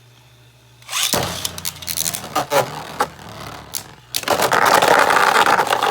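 Beyblade spinning tops battling in a plastic stadium: clattering, scraping hits start about a second in. In the last two seconds comes a louder continuous grinding scrape that cuts off suddenly, and the battle ends in a draw.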